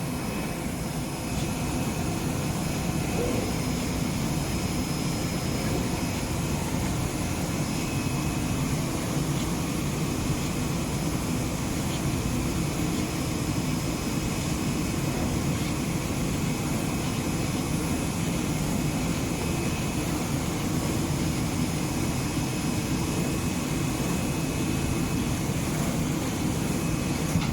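CNC oscillating knife cutting machine running as it cuts cardboard: a steady drone with faint, steady high-pitched whines over it.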